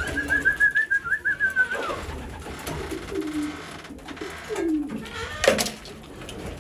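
Racing pigeons cooing, with low gliding coos through the middle. A high, wavering whistle-like sound runs through the first two seconds, and a single sharp clap or knock comes near the end.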